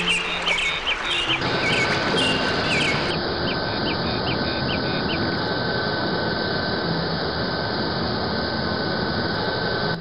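Small birds chirping for the first half. From about a second and a half in, a steady rushing jet airliner engine noise with a thin high whine joins them and cuts off suddenly at the end.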